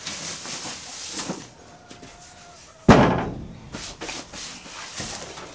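Tree-limb roost poles scraping and knocking against the wooden walls of a chicken coop as they are leaned into place, with one loud knock about three seconds in.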